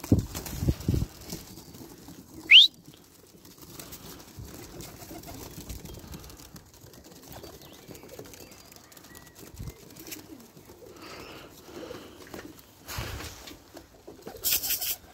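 Pigeons around a loft: wings flapping in the first second and soft cooing throughout, with a single short rising whistle about two and a half seconds in, the loudest sound. Brief rustles come near the end.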